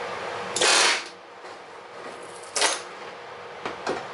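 A 2X pneumatic rivet gun fires one loud burst of about half a second, driving a rivet into the aluminum vertical stabilizer skin, then a second, shorter burst about two seconds later. Near the end come a few light metallic clicks as the gun is handled and set down.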